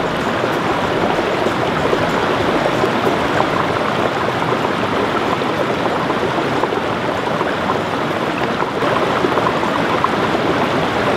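River water rushing and babbling over rocks: a steady rush of water noise with no pause.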